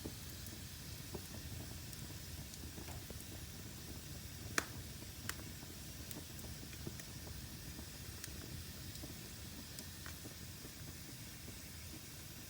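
Wood fire burning in a fireplace: a steady low rumble and hiss with scattered crackles and pops, the sharpest pop about four and a half seconds in and a smaller one just after.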